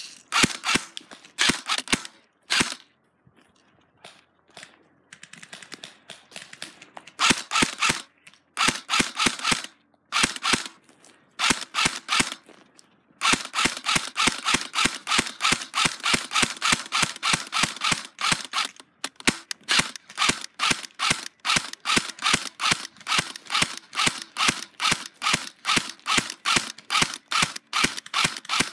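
Airsoft guns firing in long strings of rapid shots, about four a second, with a lull of a few seconds near the start and short breaks between the later strings.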